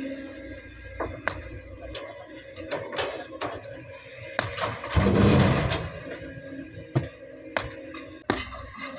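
Excavator working, its engine running steadily under a run of sharp metallic knocks and clanks. About five seconds in comes a loud rushing thud as a bucketload of sand drops into a dump truck's steel bed.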